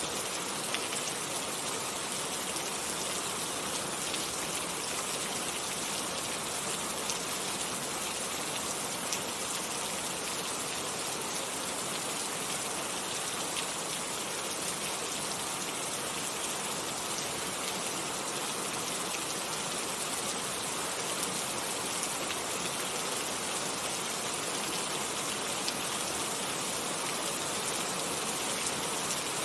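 Steady rain, an even hiss with a few faint scattered drop ticks.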